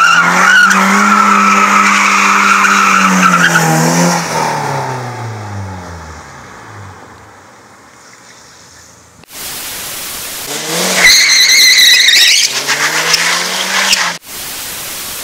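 BMW drifting: the engine is held at high revs with the tyres squealing, then the revs fall and the engine fades away. About eleven seconds in comes another burst of tyre squeal with the engine revving hard.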